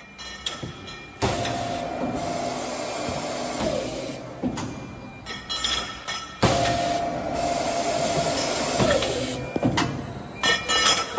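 CNC double-end tube chamfering machine working through its cycles: the heads run with a steady whine for about two and a half seconds, then wind down with a falling tone. Clicks and knocks of the tube handling fill the gaps between. The run comes twice.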